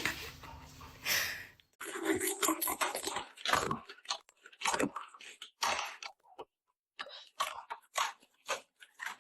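A dog chewing something crunchy: a run of irregular crunches, roughly two a second, with short pauses between bites.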